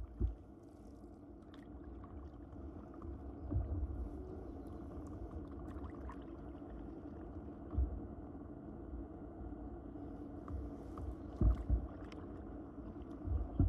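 Canoe moving down a river under paddle: a steady low rumble of water, with a handful of dull low thumps at irregular intervals.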